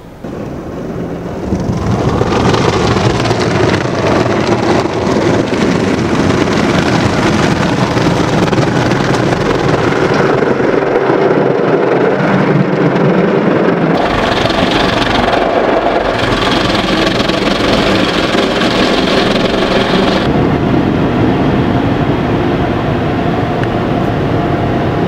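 Automatic car wash heard from inside the car: steady rush of water spray and washing equipment against the body, which shifts in character twice as the car moves through the stages, ending under the air dryer blowers.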